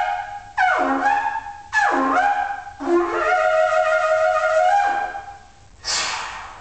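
Deskford Carnyx, a reconstructed Iron Age Celtic bronze war trumpet held upright, being blown. A held note ends, then come three blasts about a second apart, each swooping down in pitch as it starts before settling. The last is held for about two seconds and dies away, followed by a short breathy burst near the end.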